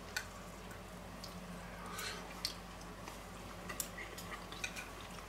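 Faint sounds of eating: chewing and a few light clicks of cutlery on a plate, over a low steady hum.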